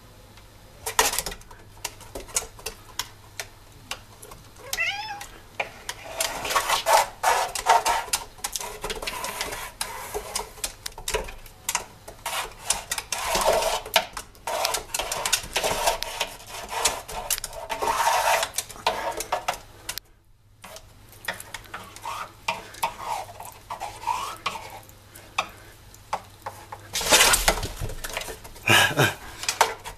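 A homemade 95 cm cat exercise wheel turning as a cat runs in it: a busy, uneven clatter of paws on the track and the wheel knocking and rattling, stopping briefly about two-thirds of the way through. Louder knocks come near the end.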